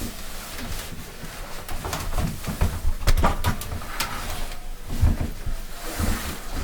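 Irregular thumps, scrapes and clothing rustle of a person clambering out through a window into deep snow, with a few heavier knocks in the second half.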